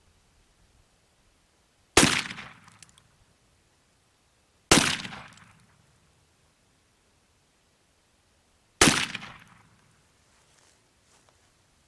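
Three shots from an 1858 Remington Navy .36-calibre black-powder revolver, spaced about three and four seconds apart. Each shot dies away over about a second.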